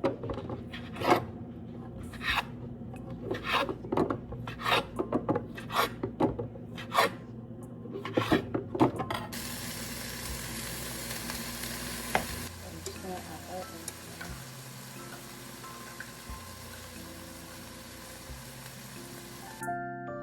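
Kitchen utensils clicking and knocking irregularly, followed from about nine seconds in by a steady hiss of food sizzling in a hot pan.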